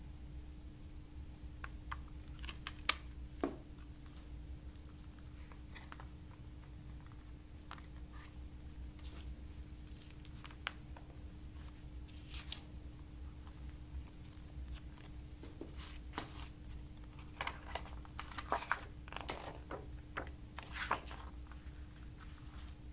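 Hands handling a clear plastic CD case and its disc: scattered light clicks and taps. This is followed by paper rustling and crinkling as a folded lyric booklet is opened out, the busiest and loudest part coming in the second half.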